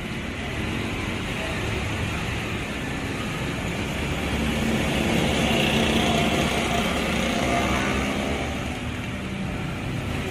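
Street traffic noise with motor vehicle engines running; one engine grows louder around the middle, then fades.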